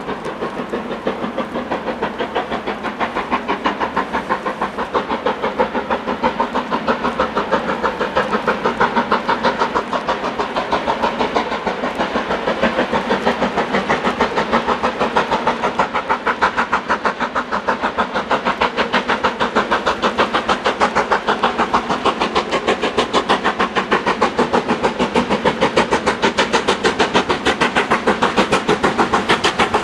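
Steam locomotive approaching at the head of a passenger train. It is working hard, with a fast, even chuff of exhaust beats that grows steadily louder.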